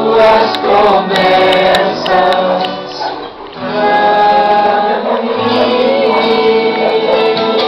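A group singing a Portuguese worship song together, with a short dip about three seconds in before the singing carries on.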